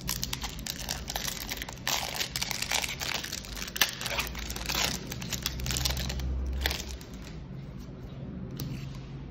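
Foil wrapper of a Magic: The Gathering Double Masters 2022 draft booster pack being torn open and crinkled: a dense run of crackles and rips over the first several seconds, then quieter rustling as the cards are handled.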